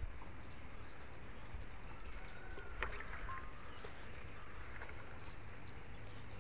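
Steady low rumble with faint rustling and clicks of banana leaves being laid over a cooking pot. A few brief, faint chirps come about three seconds in.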